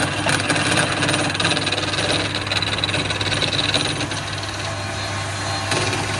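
Wood lathe motor running with a steady hum while a hand-held turning chisel cuts the spinning wooden spindle, a continuous hissing scrape as shavings peel off.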